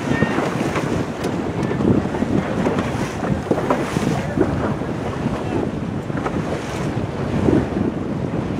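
Wind buffeting the microphone over choppy water splashing and slapping irregularly against a moving boat's hull.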